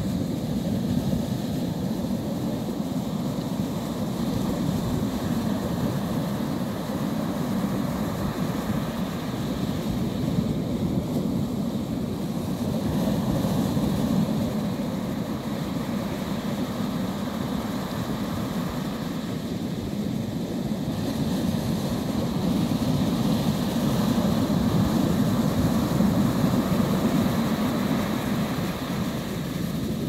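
Small waves breaking and washing up a sandy beach: a steady rushing surf that swells slowly in loudness a couple of times.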